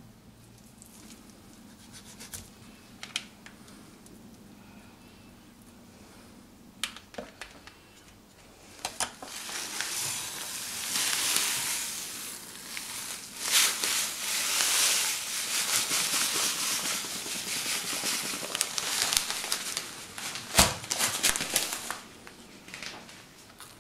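Coarse salt pouring from a bag into an earthenware dish: a loud, grainy hiss with crackle that starts about nine seconds in and lasts around twelve seconds. A few sharp handling clicks come before it, and there is one sharp knock near the end.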